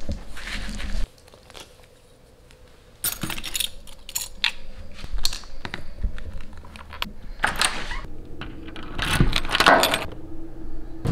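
Small hard objects clinking and jingling as they are picked up and handled off a counter. It is a string of short, sharp clicks and rattles, after a quiet moment, that grows busier and louder near the end.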